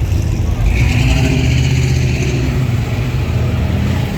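A car's engine and exhaust running loud as it cruises past at low speed, with a steady low note. About a second in there is a brief higher-pitched noise.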